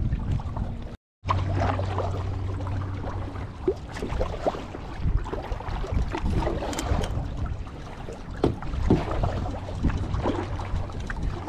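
Canoe being paddled through choppy lake water: paddle strokes splashing and water slapping against the hull, with small knocks. The sound cuts out completely for a moment about a second in.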